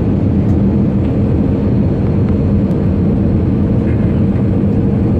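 Airbus A320 cabin noise on the landing approach: the steady drone of the jet engines and rushing air, heard through the cabin near the wing, with a low, even hum running under it.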